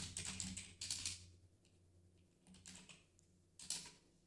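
Typing on a computer keyboard: a quick run of keystrokes in the first second or so, then a few separate keystrokes near the middle and end, faint.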